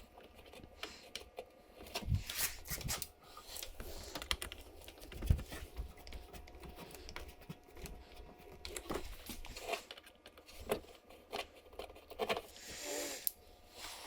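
Irregular small clicks, taps and scrapes of hands and small hardware as the MAF sensor's little screws are started by hand and snugged down into its mount on the intake tube.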